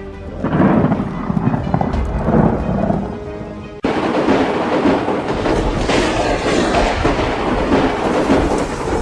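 Thunder rumbling loudly, then from about four seconds in an abrupt switch to heavy rain hissing with more thunder rumbling underneath.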